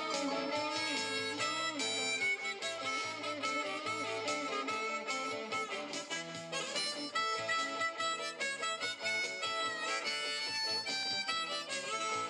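Live band playing: an amplified harmonica leads over electric guitars with a steady beat.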